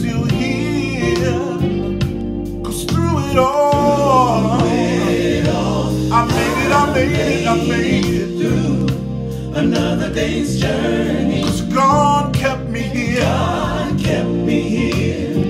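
A man singing a gospel song, his held notes bending and wavering in pitch, over a steady instrumental accompaniment.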